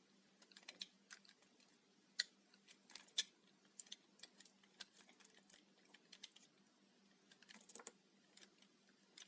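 Brittle, microwave-puffed Dalan soap crackling and crunching as it is broken up, in irregular crisp clicks with a few sharper snaps.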